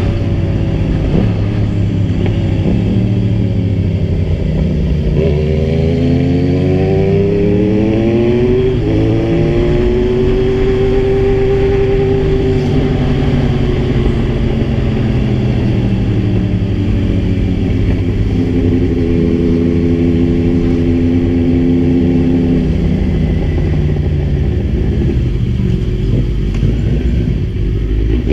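Kawasaki Z1000 inline-four motorcycle engine under way: it revs up from about five seconds in, drops back around nine seconds as it shifts, then holds an even speed, eases off and pulls steadily again.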